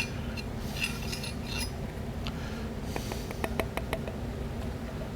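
Light clicks and scraping from handling a transmission input drum and its parts at a workbench, with a run of sharp little clicks between about two and four seconds in, over a steady low hum.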